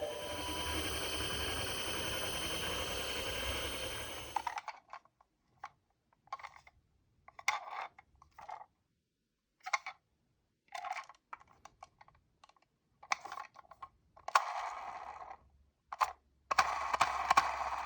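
Small plastic toy vehicle being handled and run along a track. First a steady noise lasts about four and a half seconds, then comes a string of short clicking and scraping bursts with pauses between them.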